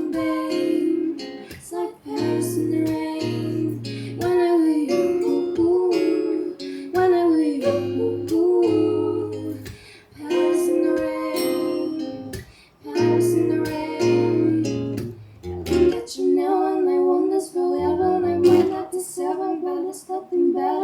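A female voice singing a pop ballad over a strummed acoustic guitar, with short pauses between phrases.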